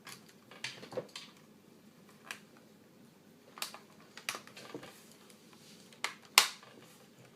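Plastic clicks and snaps of a Compaq Evo N400c laptop's keyboard being pressed down and latched into its chassis: about ten irregular clicks, the loudest near the end.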